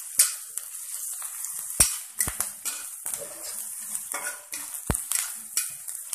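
Onions, garlic and ginger sizzling in hot mustard oil in a wok, stirred with a metal spatula that scrapes across the pan and knocks against it three times.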